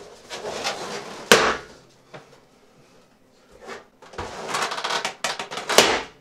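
Latex balloons being burst with a skewer: one loud sharp bang about a second in, then a run of several quicker pops and knocks near the end, with rustling of handled balloons between them.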